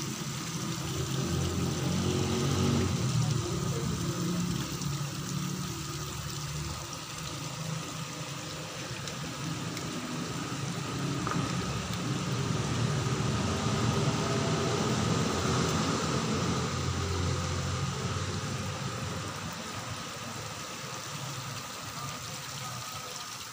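Steady trickle of water running into a garden pond, with a low engine-like rumble underneath.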